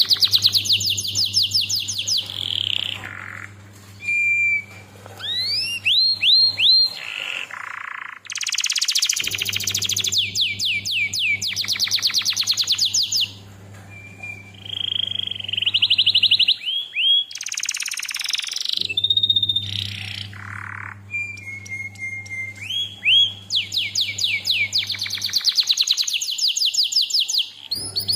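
Canary singing: fast rattling trills of many short downward-sweeping notes, broken by rising whistled glides, short held whistles and a few brief pauses.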